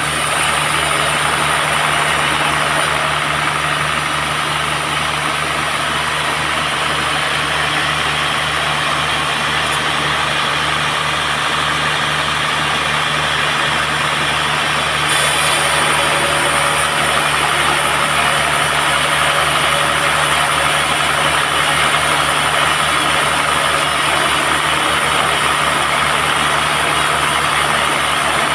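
Band sawmill running steadily as it saws a teak log: a constant low machine hum under a noisy hiss. The sound steps up slightly in loudness and brightness about halfway through.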